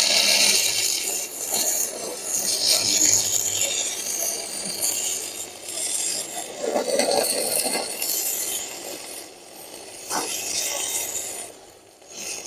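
Stick-welding arc from a Uyustools 160 A DC inverter welder burning a 12-gauge electrode at high current, crackling and hissing irregularly. It drops briefly a few times in the last few seconds.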